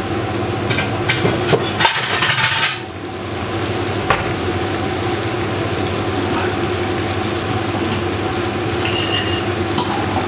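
Stir fry sizzling steadily in a frying pan on the hob, over a steady hum. It sizzles louder for a moment around two seconds in, and there is a single sharp click about four seconds in.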